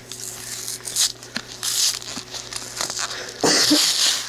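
Stiff plastic blister packaging crinkling and crackling as it is pried and torn open by hand, in irregular bursts, loudest near the end.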